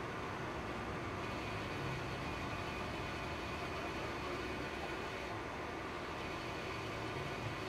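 Steady background hiss and hum at a constant level, with no distinct events.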